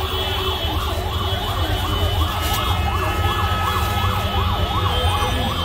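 Electronic siren warbling rapidly up and down, about three rises a second, over a steady low street rumble.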